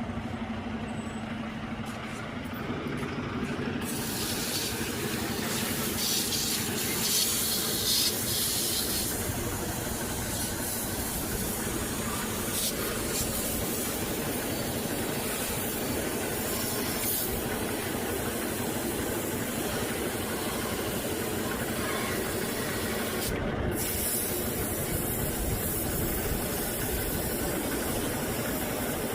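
Car engine running steadily, with a steady hiss over it from about four seconds in.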